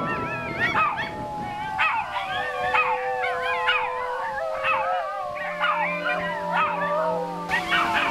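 Several Shiba Inus howling and yelping together in an excited greeting, with many overlapping cries that waver up and down in pitch and a few long held notes.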